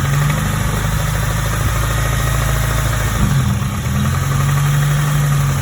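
Acura RSX Type S K20A2 2.0-litre inline-four running steadily just above idle with a subtle, low knocking noise. The owners take the knock for a worn rod bearing, not pre-ignition. The oil has been thickened with an additive, which dulls the knock. The engine note wavers briefly about three seconds in.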